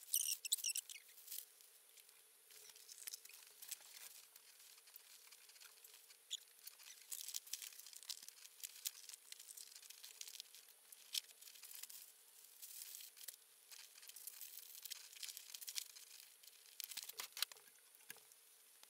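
Faint, thin, fast rustling and crinkling with many small clicks: clothes, a clear plastic toiletry bag and other belongings being handled and packed into a backpack.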